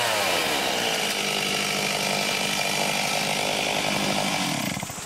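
Chainsaw running hard and cutting into a fallen tree trunk. Its engine note sags as the chain bites in over the first second, holds steady, then eases off near the end.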